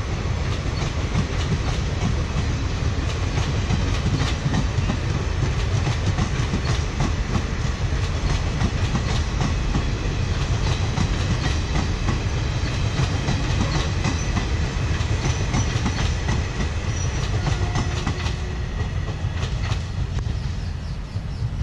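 A long passenger train's blue coaches rumbling past, their wheels clattering over the rail joints in a steady clickety-clack. It fades a little near the end as the last coach goes by.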